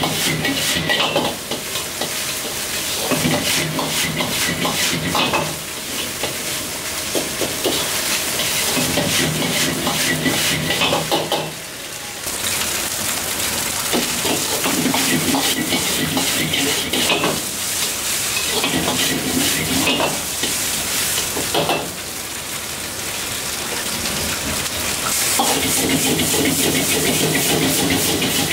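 Metal ladle stirring and scraping fried rice in a wok over a high gas flame, with a fast clatter of ladle strokes against the wok over steady sizzling. It comes in spells of a few seconds with short lulls as the wok is tossed.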